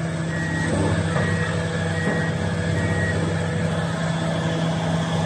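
Komatsu PC400-7 excavator's six-cylinder diesel engine running steadily with a deep hum while the boom and arm are worked. Faint short high beeps repeat until about three seconds in.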